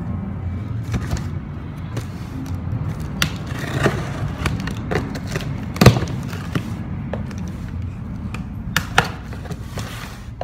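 A cardboard shipping box being cut open with a knife: the blade scrapes through the packing tape and the cardboard flaps rustle and knock. Scattered sharp knocks run through it, the loudest about six seconds in.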